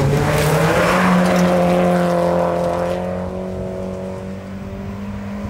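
Volvo rally car driving past at speed, its engine running hard at high revs with a steady note. The sound is loudest in the first couple of seconds, then fades as the car pulls away.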